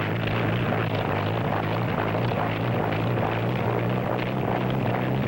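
Piston engine and spinning rotor running steadily: an even mechanical drone over a low hum.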